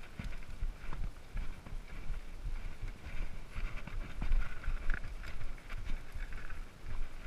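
Mountain bike rolling over a rocky single track, heard through a camera mounted on its handlebar: irregular knocks and rattles of the bike jolting over stones, over a steady rumble.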